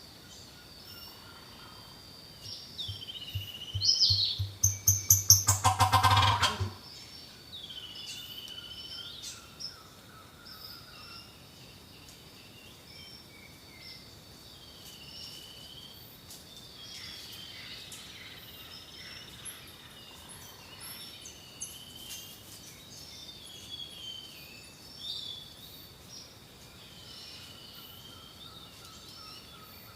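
Turkey gobbling loudly once, a rapid rattling call about four to six seconds in. Other birds call repeatedly against a steady high insect drone.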